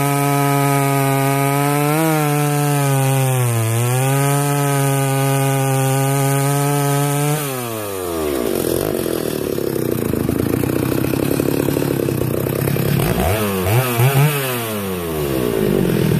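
Ported Stihl 075 two-stroke chainsaw with its rev limiter disabled, held at full throttle and running at a steady high pitch with two brief dips. About seven seconds in the throttle is released: the pitch falls to a rough idle, then it is blipped up and back down twice near the end.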